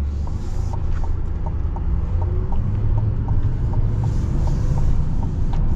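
Chevrolet Silverado 2500 HD pickup's engine and road rumble, heard from inside the cab as the truck pulls onto the road and accelerates.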